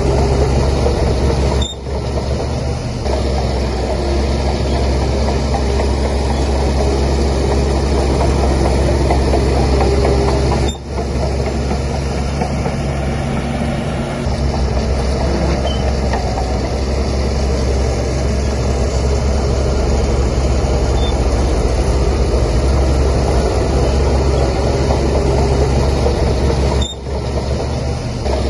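Heavy bulldozer diesel engine running steadily under load, with brief drops in level about two seconds in, about eleven seconds in and near the end.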